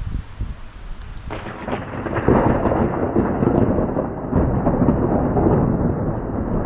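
Thunder over steady rain: a low rumble that swells about two seconds in into a long, loud peal that keeps rumbling.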